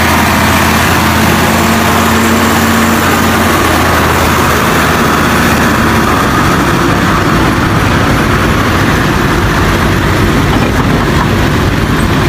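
Engine of a log-laden Ford Canadian Military Pattern timber truck running as the truck drives past and pulls away. Its low, steady engine hum fades about halfway through, leaving a loud, even rushing noise.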